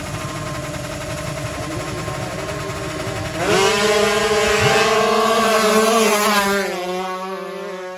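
155 cc sport-class drag-racing motorcycle engines: a low rumble at first, then about three and a half seconds in one engine revs up sharply and holds a loud, high, steady note for about three seconds before it eases off.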